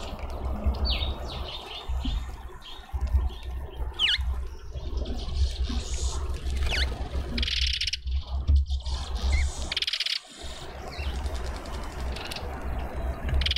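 Small garden birds chirping and calling, with short high chirps and a few quick sliding whistles, over a steady low rumble.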